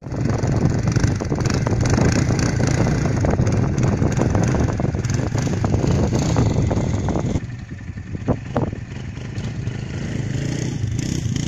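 Quad bike (ATV) engines running as the machines ride over the sand, a dense steady hum that falls quieter about seven seconds in.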